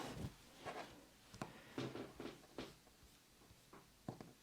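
A handful of faint, short clicks spread unevenly over a few seconds, from a laptop being operated to move content onto an extended second display.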